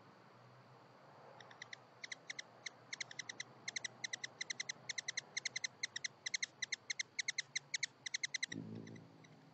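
Hummingbird chattering: a long run of short, sharp, high chip notes given in quick clusters of two to four, several notes a second, for about seven seconds. A brief low sound comes near the end.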